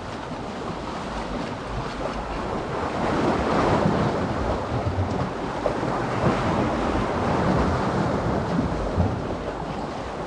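Sea waves washing in, with wind buffeting the microphone; the wash swells louder a couple of times.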